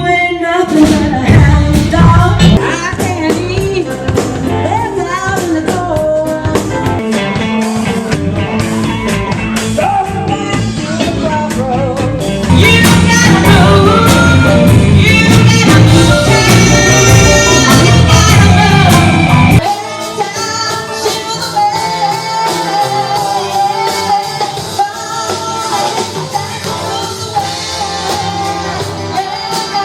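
Band music with a singer, in a rock and roll vein. About halfway through it grows louder and fuller. About two-thirds of the way through it turns quieter and the bass drops away.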